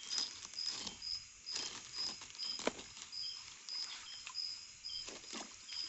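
Scattered splashes and sloshing of shallow stream water as someone wades through it, the loudest about two and a half seconds in, over night insects chirping steadily about twice a second.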